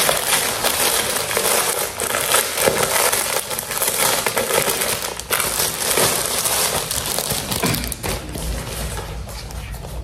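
Packaging crinkling and rustling as it is handled and unwrapped, in a dense run of irregular crackles that eases toward the end.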